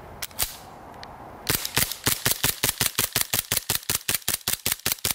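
G&G GPM1911 CP gas blowback airsoft pistol: two sharp clicks near the start, then rapid fire from about a second and a half in, an even string of shots at about seven a second with the slide cycling on each.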